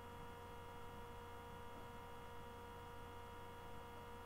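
Low, steady electrical hum made of several faint steady tones, over quiet room tone.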